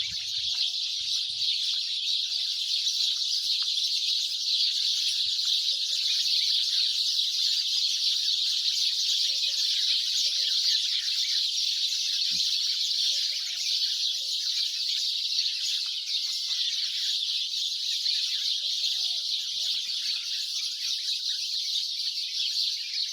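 A dense chorus of many small birds chirping at once, a steady wall of high twittering, with a few fainter, lower calls scattered through it.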